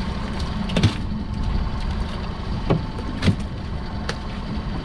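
Small boat's engine idling steadily, with four sharp knocks as a weeded-up pot line is hauled by hand over the side.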